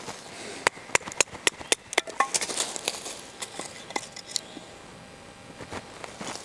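Repeated sharp knocks of a wooden baton striking the spine of a Blind Horse Knives Bushcrafter knife, driving the flat-ground blade down through firewood to split it. The strikes come quickly, about three or four a second, then fall off to a lull near the end.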